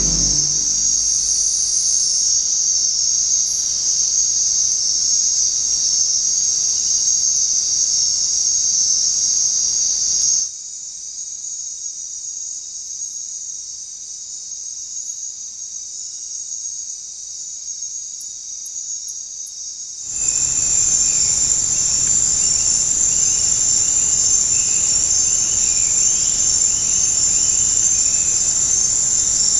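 Steady, high-pitched chorus of rainforest insects trilling without pause. It drops suddenly in level about ten seconds in and comes back just as suddenly about ten seconds later, as one trail-camera recording gives way to the next.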